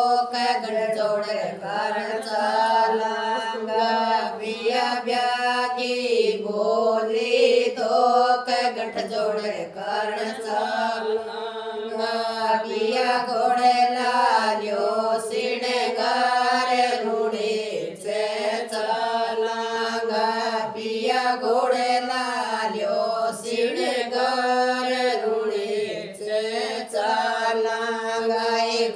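A group of village women singing an old Rajasthani devotional bhajan to Ramdev Baba together, voices in unison in a continuous chant-like melody.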